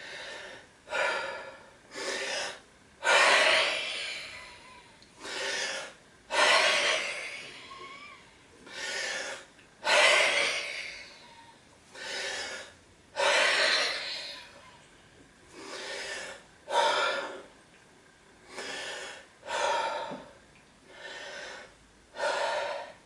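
A man breathing hard and deeply in and out, one loud breath every one to two seconds, as he gets his breath back after a set of weighted push-ups.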